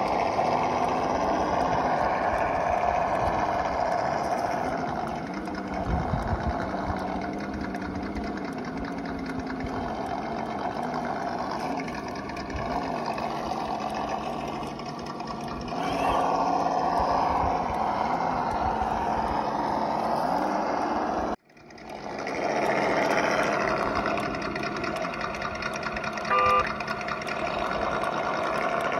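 Simulated V8 engine sound from an RC scale crawler's electronic sound module, its pitch rising and falling with the throttle. About two-thirds of the way through it cuts out suddenly and fades back in, and a short beep sounds near the end.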